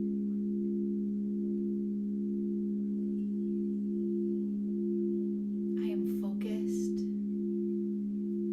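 Singing bowls sounding together in a sustained drone of several steady tones, one of them wavering in a slow regular beat. A short breathy noise comes in about six seconds in.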